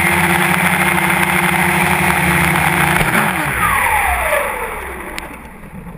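Quadcopter's electric motors and propellers running steadily, then spinning down after about three seconds, their pitch falling as the drone's motors are shut off.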